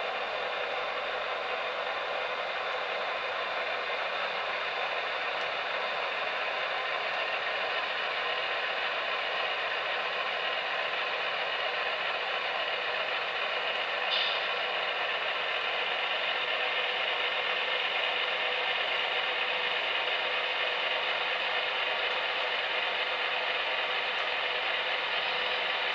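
HO-scale model train of three BLI Paragon2 Union Pacific AC6000CW locomotives running past on the track, with a steady mechanical running noise from the moving models. A single short click is heard about halfway through.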